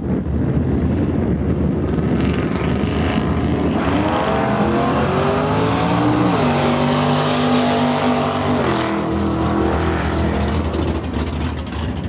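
Drag car making a full-throttle launch and pass: after a low rumble, the engine note climbs for about two seconds, holds fairly level, and fades out about nine seconds in as the car goes away down the strip.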